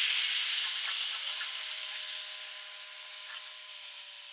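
A steady hiss that fades gradually, with a faint steady hum coming in about a second in and a few faint ticks.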